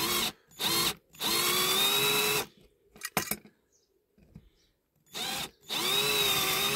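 Cordless drill running in several bursts, the longest about a second and then about two seconds, as it drills the mushroom heads off the rivets holding a diecast toy car's base. The motor whine holds a steady pitch during each burst.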